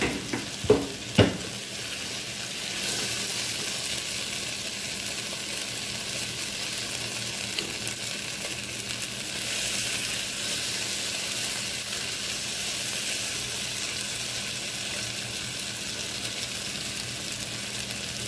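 Onion and tomato masala sizzling in oil in a cooking pan as the tomatoes cook down, with a few sharp knocks against the pan in the first second or so.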